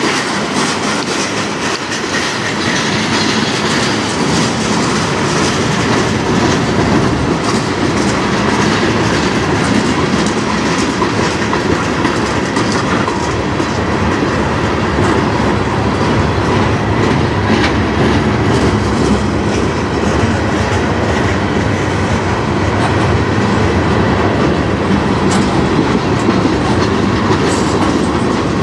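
Freight cars of a manifest train rolling past: gondolas, a covered hopper and tank cars. The steel wheels make a steady rumble on the rails, with frequent clicks as they cross rail joints.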